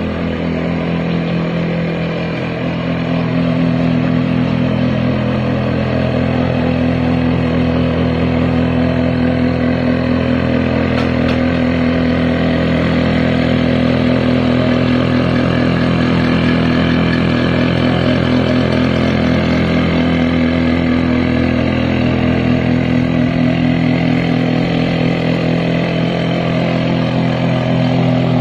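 Small petrol engine on a model excavator running steadily at a fairly even speed, with a brief dip in level about two seconds in.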